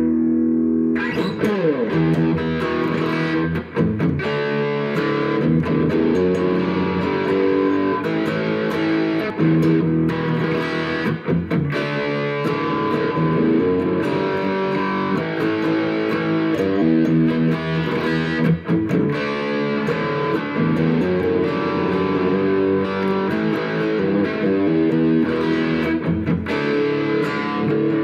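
Gibson SG electric guitar played amplified, a continuous run of changing notes, with a falling slide in pitch about a second in.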